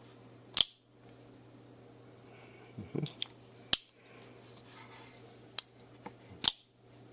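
Hubertus camper-model lever-lock automatic knife being worked open and shut: about five sharp metallic clicks and snaps as the spring-driven blade fires out and is locked and closed. The loudest snaps come about half a second in and near the end.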